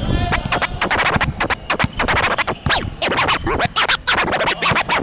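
Record scratching on a DJ turntable, quick choppy back-and-forth strokes at the start of a music track.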